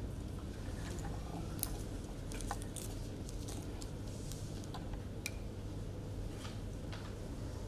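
Meeting-room background: a steady low hum with scattered faint clicks and small handling noises, several of them over a few seconds.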